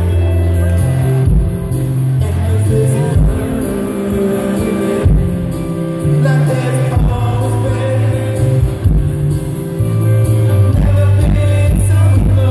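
Live rock band playing through a concert PA, heard from the audience: acoustic guitar and keyboards over a deep bass line, with drum hits coming in more densely after about ten seconds.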